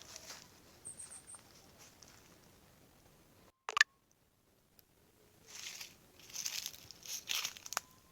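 Footsteps crunching on the forest floor, faint at first and louder in a run of steps near the end. A faint high bird chirp of a few quick notes about a second in, and a sharp click a little before halfway, followed by a second of dead silence.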